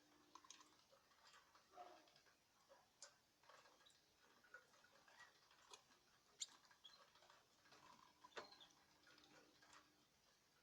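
Faint, irregular clicks and taps from caged birds moving about in their cage, a few a second, with a couple of sharper ticks.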